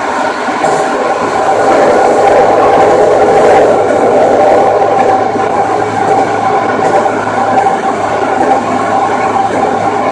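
Toei 5300 series electric train running along the line: continuous rumble of wheels and running gear with a steady mid-pitched tone and a low hum. It swells a couple of seconds in and eases back slightly.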